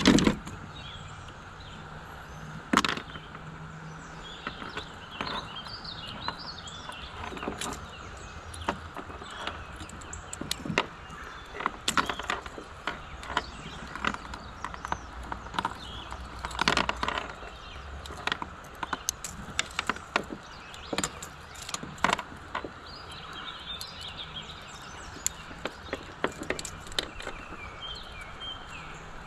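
Irregular clicks and knocks of metal fishing pliers and a lure's treble hooks against a plastic kayak while a hooked fish is being unhooked, over steady water noise. The loudest knocks come right at the start and about three seconds in.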